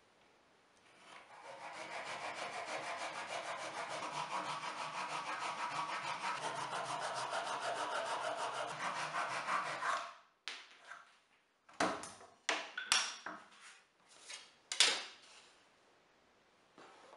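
Japanese dozuki hand saw cutting through a thin plywood strip with fast, even strokes. The sawing stops about ten seconds in, followed by several sharp knocks.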